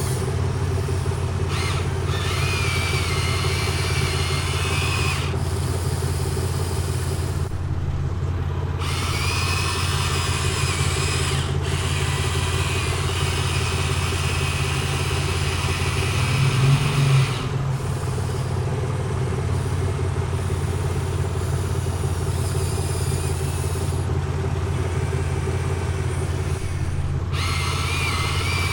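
Excavator engine running steadily, with a higher whine that comes and goes in stretches of a few seconds as the machine works, and a brief louder surge about two-thirds of the way through.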